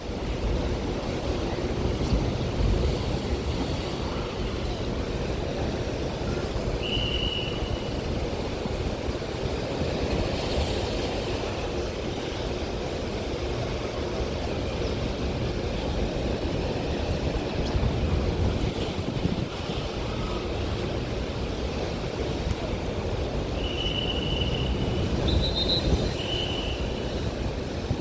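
Ocean waves surging and wind blowing around a docked cruise ship, with a heavy low rumble of wind on the microphone. A few short high squeaks come about seven seconds in and again three times near the end.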